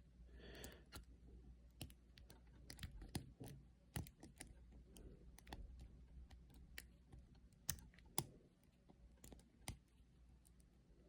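Faint, irregular small metallic clicks of the pin tumblers in a laminated Master padlock as a hook pick lifts them against tension from a tension tool in the keyway, with a few sharper clicks among them.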